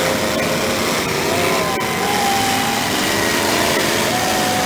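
Engines of several demolition derby cars running and revving at once, their pitches rising and falling over each other.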